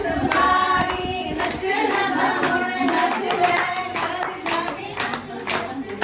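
Voices singing a song, accompanied from about two seconds in by steady rhythmic hand clapping, roughly two claps a second.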